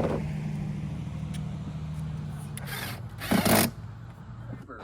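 A small electric motor runs with a steady hum that drops slightly in pitch about halfway through. A short loud noise breaks in about three and a half seconds in.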